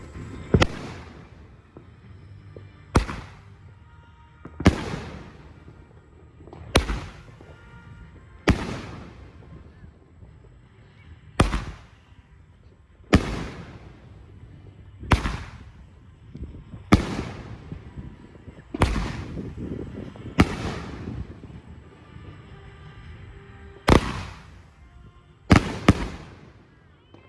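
A 2-inch bore 9-shot consumer firework cake (SFX Color Rush, 500 g) firing its shells, each launch and break giving a sharp bang, about one every two seconds. Each report fades quickly.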